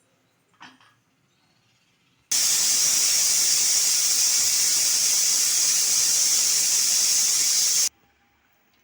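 Pressure cooker whistle: a loud, steady high hiss of steam venting through the weight valve for about five and a half seconds, starting and cutting off abruptly, the sign that the cooker has reached pressure.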